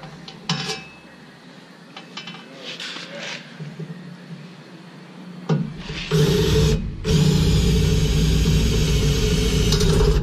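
Cordless drill spinning a step bit under load against the truck's bumper, a steady grinding whine that starts about five and a half seconds in and breaks off once briefly. The bit is dull and barely cutting, which the driller takes as the sign that it is time for a new step bit.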